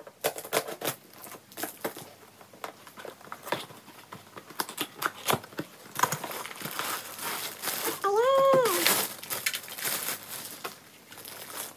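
Plastic packaging crinkling and rustling, with scattered clicks and scrapes from a cardboard box, as a ring light and its cable are unpacked. The rustling is loudest in the second half.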